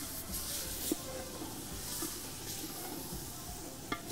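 Wooden spoon stirring and scraping frying onions, spices and tomato paste in a metal pot, over a low sizzle, with two sharp knocks of the spoon against the pot, about a second in and near the end.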